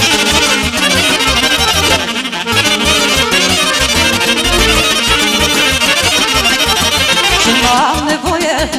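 Instrumental break of Romanian folk dance music for a hora: a fast running melody over a steady bass beat.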